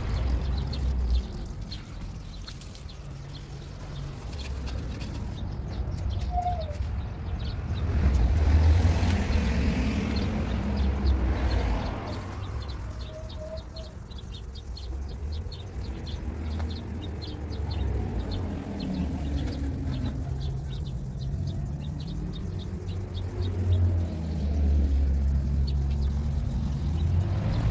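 Outdoor background: a low, uneven rumble with a few faint bird chirps.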